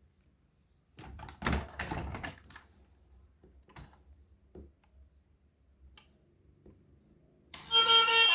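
A quick cluster of light clicks and rattles of small hard objects about a second in, then a few scattered faint ticks. A loud tune starts playing near the end.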